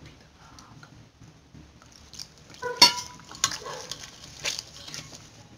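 Hands kneading maize-flour dough in a steel bowl: soft rubbing with a few scattered knocks and clinks on the metal, the loudest about halfway through with a brief ring.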